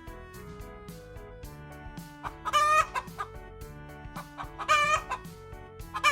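Chicken calls, short loud cries about two seconds apart, three of them, over a soft background music bed.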